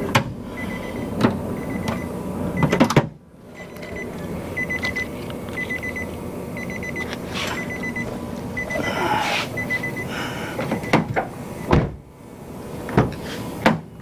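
Nissan Rogue's key-in-car warning chime beeping, a short high beep about every three-quarters of a second, which stops about ten seconds in; it signals that the key is still in the car with the door open. Sharp clicks and knocks from door parts being handled sound over it and after it.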